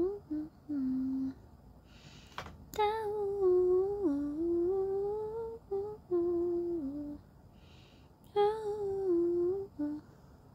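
A woman humming a slow tune with her lips closed, in short phrases of held notes that slide up and down, with pauses between them.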